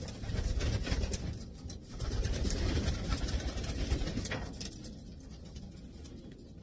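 Racing pigeons cooing in low, rolling phrases, with scattered sharp clicks and scuffs.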